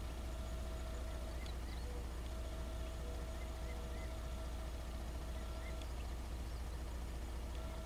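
Outdoor ambience: a steady low rumble, with a faint steady hum that cuts in and out. Over it come a handful of short, faint, high bird chirps, scattered between about one and a half and six seconds in.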